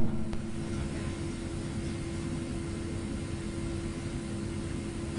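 Steady electrical hum and hiss, with one constant low tone, from a sound system picking up an amplified line.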